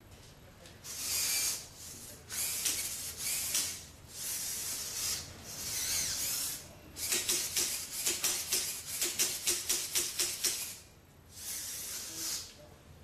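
Bioloid GP humanoid robot's AX-18A servos whirring in short bursts as its arms swing, with a rapid run of clacks, about four to five a second, in the middle as the robot claps its metal-framed hands together.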